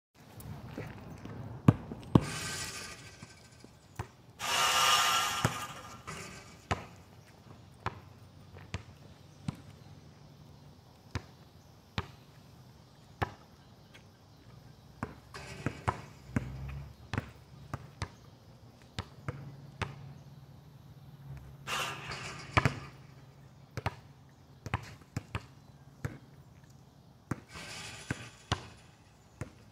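Basketball bouncing on an asphalt court, a sharp knock about every second as it is dribbled and shot, with a few louder noisy bursts about a second long in between, the loudest about five seconds in.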